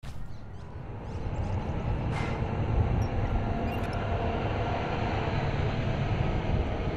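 Steady low rumble of vehicle noise, getting a little louder after about a second, with a few faint clicks in the first two seconds.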